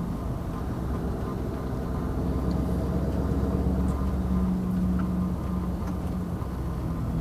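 Scania 770S's 16.4-litre V8 diesel running on its stock exhaust, a deep steady rumble whose note shifts about halfway through.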